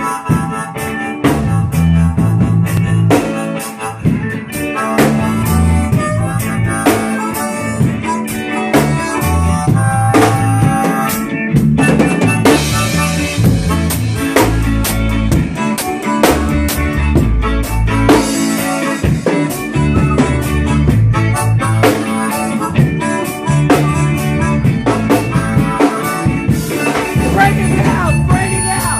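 Live band playing a reggae groove, with an amplified harmonica leading over a drum kit and a moving low bass line.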